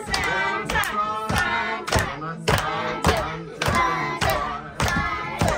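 A group of children and adults singing a song together, clapping in time at a steady beat of just under two claps a second.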